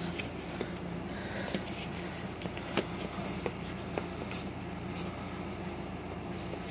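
Steady low room hum with scattered light clicks and taps of a DVD box set's plastic disc tray and cardboard sleeve being handled.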